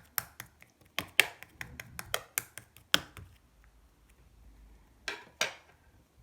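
Slime being squeezed and pressed by hand, giving a quick run of sharp clicking pops for about three seconds, then two more pops near the end.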